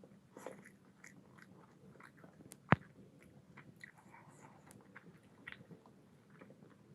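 Close-miked chewing of a mouthful of mutton curry and rice, with small wet mouth clicks and smacks. One sharp click, much louder than the rest, comes near the middle.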